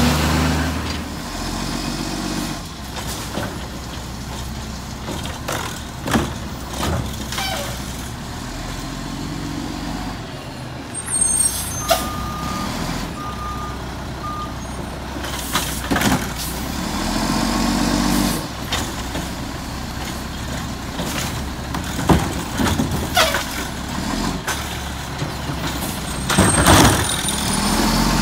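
Mack MR garbage truck's diesel engine running and revving, with air brake hisses, a few short beeps and sharp clanks as it pulls up to curbside carts. Near the end the engine revs up as the McNeilus automated side-loader arm lifts a cart.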